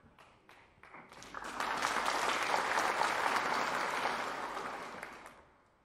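Applause from a hall full of people: a few scattered claps at first, swelling into steady clapping about a second and a half in, then dying away near the end.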